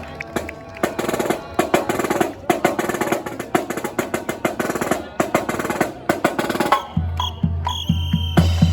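Marching band drum cadence: snare drums playing rapid strokes and rolls. About seven seconds in, a low sustained note joins under the drums.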